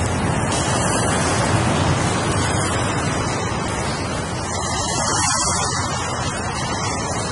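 Ocean surf washing steadily onto the shore, a continuous roar of breaking waves with a slight lull about four seconds in.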